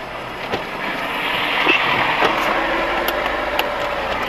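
Road traffic heard from inside a stopped car through a dashboard camera: vehicle engine and tyre noise swells over the first two seconds and then eases off a little.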